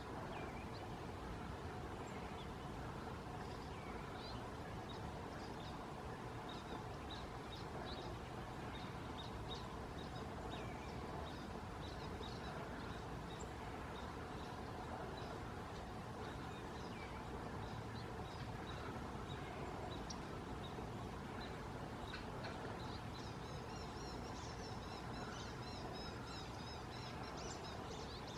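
Birds calling outdoors: scattered short, high chirps over a steady background rumble, then a quick run of repeated high notes near the end.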